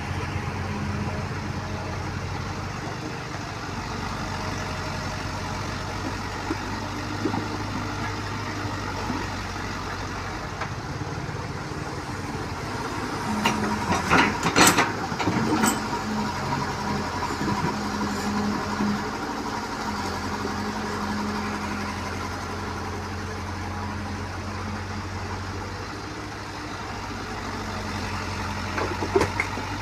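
Small crawler excavator's diesel engine running steadily, its pitch rising a little for stretches as the hydraulics take load. About halfway through there is a cluster of sharp metallic clanks as the bucket digs into the muddy, stony ground. Near the end comes a brief clatter as the bucket swings over and tips soil into the dump truck's steel bed.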